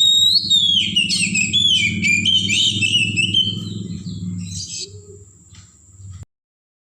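Oriental magpie-robin singing a fast, varied run of whistled, gliding phrases that stops about five seconds in, over a low steady hum and a thin high steady tone. The sound cuts out abruptly shortly before the end.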